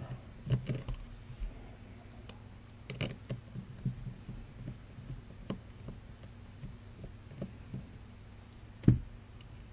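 Scattered small clicks and taps of a screwdriver and metal carburetor parts being handled on a workbench, over a faint steady hum. One louder knock comes near the end.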